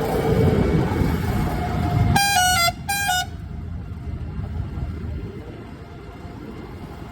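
Loud low rumble of a vehicle on the move, broken about two seconds in by two short honks of a vehicle horn, each stepping slightly down in pitch; a quieter rumble carries on after.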